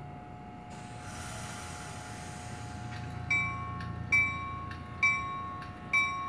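NJ Transit electric train standing at the platform with a steady electrical hum. About a second in there is a hiss of air, and about halfway through the train's bell starts ringing, one strike a little under every second, as it readies to depart.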